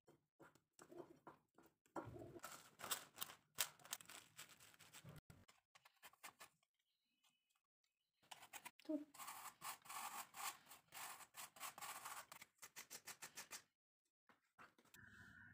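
Apple being grated by hand on a grater: a long run of short, even scraping strokes in the second half, coming about five a second near the end. Earlier, fainter rubbing and knocks from hands working dough in a bowl.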